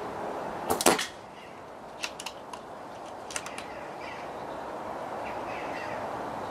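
A .177 Falcon PCP air rifle with a silencer fires once about a second in, a short cluster of sharp cracks that includes the pellet striking downrange. Softer clicks follow about two and three and a half seconds in, as the bolt is cycled and the self-indexing magazine turns to the next pellet.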